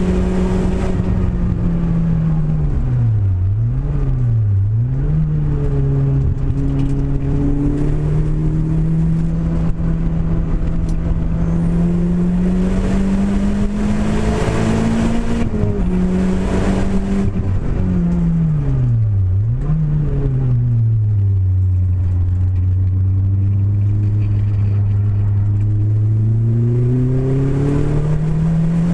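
Renault Clio engine running, its pitch holding steady and then dropping and rising sharply twice a few seconds in and again about two-thirds through. It settles lower for several seconds and climbs again near the end. This is the car whose misfire the owner is showing.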